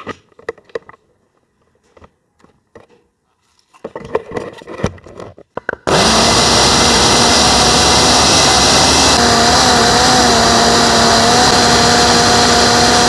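Countertop electric blender blending onion, garlic, fresh herbs, green chillies and water into a green paste: after a few light knocks and clicks it switches on abruptly about six seconds in and runs loud and steady, a motor whine over the churning, wavering slightly in pitch midway.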